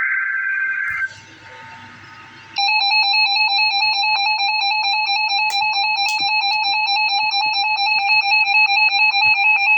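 The last burst of an Emergency Alert System SAME header, a harsh two-pitch digital data tone, cuts off about a second in. After a short quieter gap, the EAS attention signal, a loud steady two-tone alarm, starts and holds.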